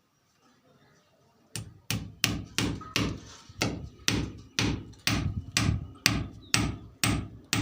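A hammer driving nails with quick, evenly spaced blows, about three a second, starting about a second and a half in.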